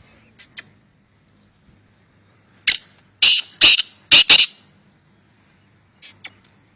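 Black francolin calling: two short notes, then a loud, harsh phrase of about five rapid notes in the middle, then two short notes again near the end.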